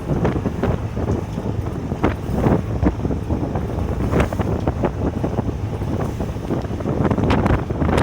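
Moderate wind (about force 4 on the Beaufort scale) buffeting the microphone on a sailing yacht: a steady low rumble with irregular gusty surges, and waves washing past the hull.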